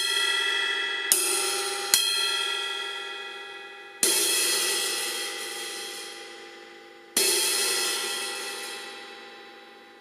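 Paiste 2002 18-inch crash cymbal struck four times, each hit ringing out and slowly fading; the first two come close together and the last two are spaced a few seconds apart.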